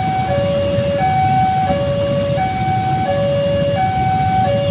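Railway level-crossing warning alarm sounding an alternating high-low two-note tone, each note about two-thirds of a second long, as a passenger train passes. Underneath is the low rumble of the train and idling motorcycles.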